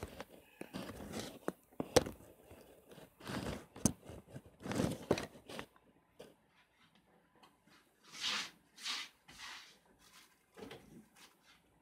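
A phone being handled and propped up: its microphone picks up rubbing and rustling, with a few sharp knocks in the first four seconds.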